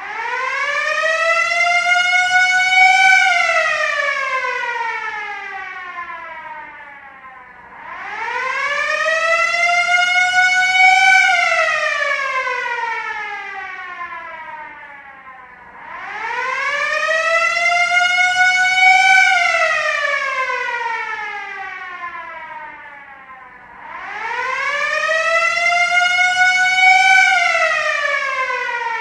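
Air-raid siren wailing in four slow rise-and-fall cycles. Each cycle climbs in pitch for about three seconds, then slides back down for about five, starting again roughly every eight seconds.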